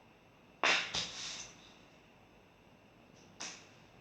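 A woman's short, sharp breaths: a quick double breath about a second in and another brief one near the end.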